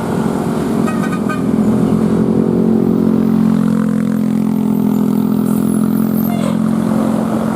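Heavy road vehicle's engine running close by, a loud steady drone that holds its pitch.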